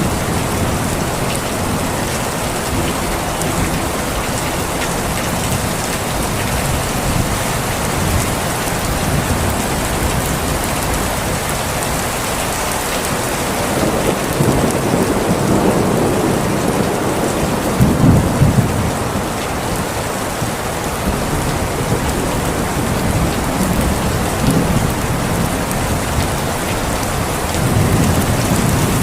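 Steady, heavy rain falling, with low rolls of thunder swelling up about halfway through and again near the end.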